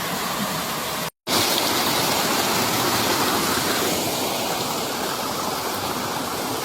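Mountain stream rushing over rock, a steady hiss of running water, broken by a brief dropout about a second in.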